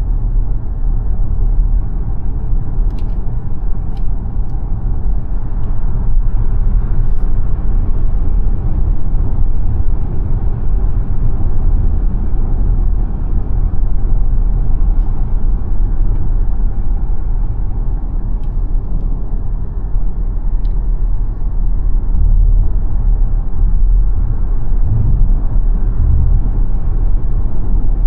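Xpeng G9 Performance electric SUV being driven: steady low rumble of tyres and road noise, with no engine note, and a few faint ticks.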